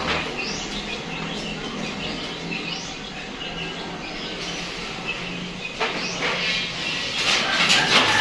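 Birds chirping in short repeated calls over a steady low hum, with light clattering in the last second or so.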